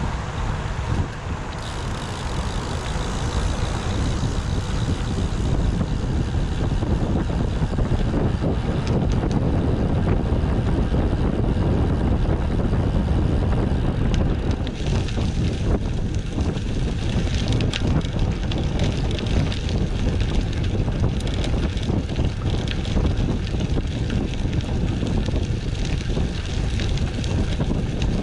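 Wind buffeting the action camera's microphone on a moving road bike, a steady low rumble mixed with tyre and road noise. A higher hiss grows about halfway through.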